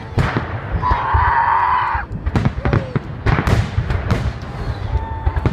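Fireworks salute: a quick, irregular series of sharp bangs from bursting shells, with a dense burst of noise a second or so in.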